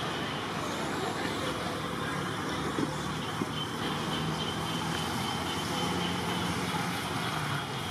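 A motor vehicle engine running steadily, a low hum over a wash of noise, with two brief clicks about three seconds in.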